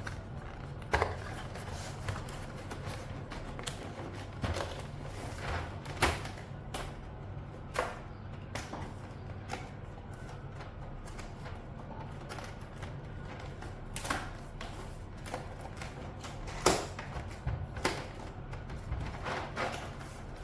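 Keystrokes on a mechanical keyboard with PBT dye-sub keycaps: irregular, unhurried typing, with a handful of louder strikes among the fainter clacks.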